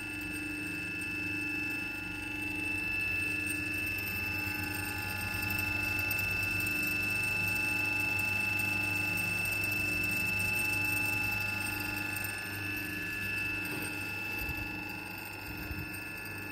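Old 2.2 kW three-phase induction motor running with no load, a steady electrical hum with a high-pitched whine over it and a slow beat in the hum.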